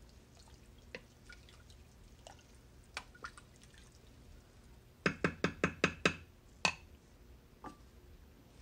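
Wooden spoon stirring a thick lentil-and-vegetable sauce in a stainless steel Instant Pot inner pot, with soft wet sloshing and light clicks against the pot. About five seconds in comes a quick run of about ten sharp, ringing knocks of the spoon on the metal pot, then one more knock.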